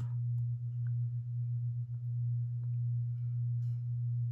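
A steady low hum, with a few faint soft taps and rustles of paper being handled.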